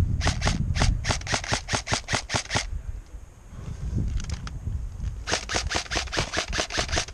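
Airsoft rifle firing rapid strings of sharp shots, about five a second: one string over the first two and a half seconds, a pause, then another string from about five seconds in.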